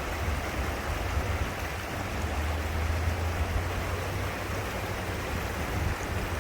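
Steady rush of flowing river water, with a constant low rumble underneath.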